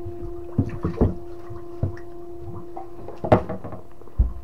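Sounds aboard a small fishing boat: a steady hum runs under irregular knocks and thumps against the hull and deck, the loudest about three seconds in.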